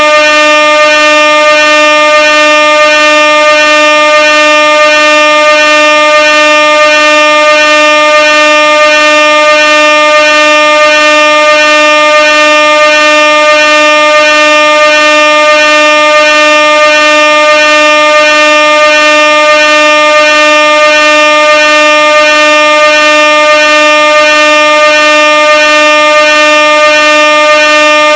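Air horn sounding one loud, unbroken, steady tone that wavers faintly in a regular rhythm.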